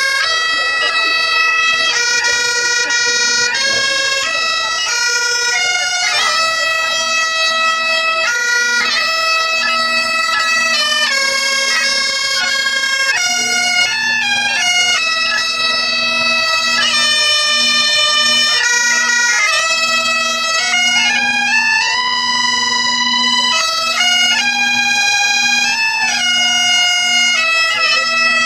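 Three Great Highland bagpipes playing a melody together, its notes held a second or two each, over the pipes' unbroken drone.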